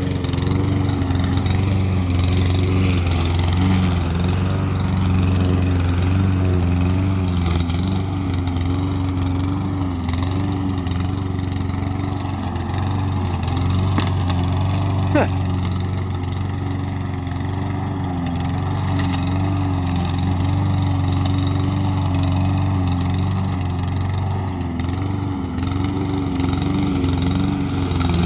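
Walk-behind lawn mower's Briggs & Stratton overhead-valve engine running steadily, its pitch wavering slightly. Two sharp clicks come about halfway through.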